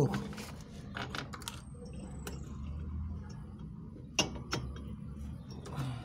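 Pliers clicking and scraping against copper refrigeration tubing as a tube is worked into a compressor's tube stub, with a few sharp metallic clicks spread through.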